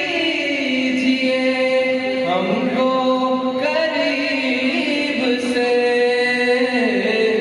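A man singing into a microphone, holding long notes that slide and step from one pitch to the next.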